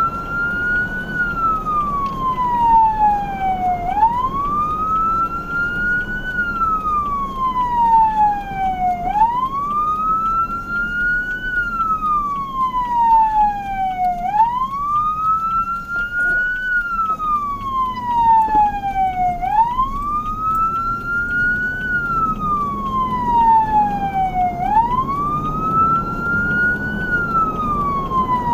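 Emergency vehicle siren on a slow wail, each cycle rising quickly and then falling slowly, repeating about every five seconds, over the low rumble of the vehicle's engine and road noise.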